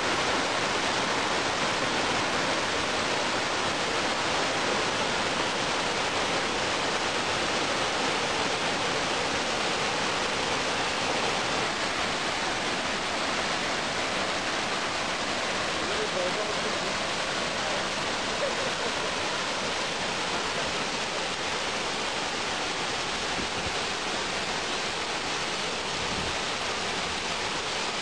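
Steady rush of a tall waterfall pouring down a rock face into a rocky plunge pool.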